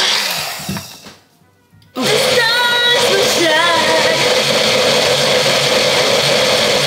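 Single-serve personal blender running and blending frozen fruit, winding down about a second in; after a moment of near quiet the motor noise comes back abruptly about two seconds in and runs steadily, with a pop song with singing playing over it.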